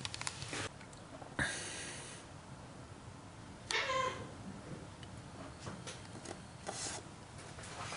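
A cat meows once, a short pitched call about halfway through. A brief rush of noise comes about a second and a half in, with scattered light clicks at the start and near the end.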